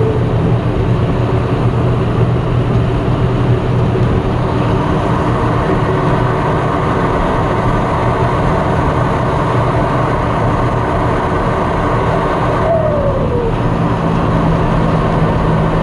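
John Deere 6230 Premium tractor's turbocharged diesel engine running steadily under way, heard from inside the cab. About thirteen seconds in the turbocharger gives a short whistle that falls in pitch.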